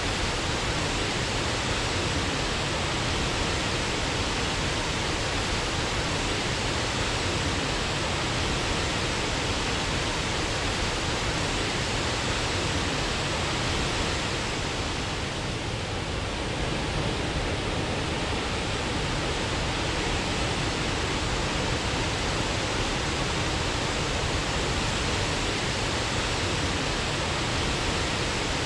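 Waterfall rushing steadily, a constant dense roar of falling water, dipping a little in loudness about halfway through.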